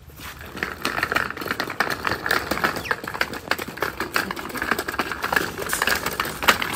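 Small wooden cart with a wire-mesh basket rattling and clattering as its little wheels roll over tile paving, a dense run of irregular clicks.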